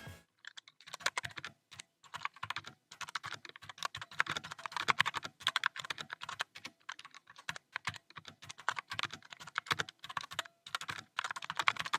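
Continuous fast typing on a BlitzWolf BW-KB0 60% mechanical keyboard: a dense run of key clicks with a couple of brief pauses, not that loud.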